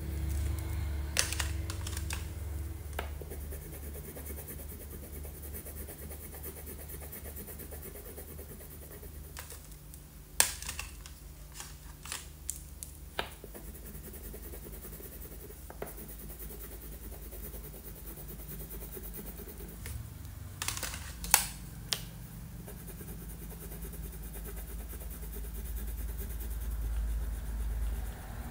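Wax crayon scratching across paper as a picture is coloured in, with scattered sharp clicks and taps, the loudest about ten seconds in and again about twenty-one seconds in, over a steady low hum.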